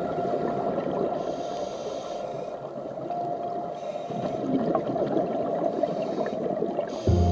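Underwater sound of a scuba diver breathing through a regulator. A hiss of inhaled air comes about a second in and again near the end, with the crackle and gurgle of exhaled bubbles between.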